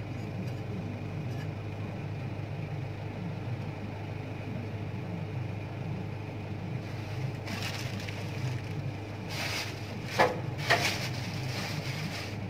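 Engine idling steadily, with two sharp knocks a little over ten seconds in.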